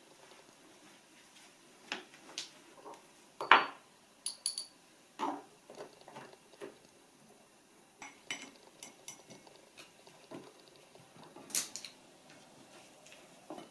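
Craft supplies being picked up and set down on a wooden tabletop: scattered knocks and light clinks of glass ink bottles and jars, marker pens and a paintbrush. The loudest clunk comes about three and a half seconds in, followed by a couple of short glassy rings.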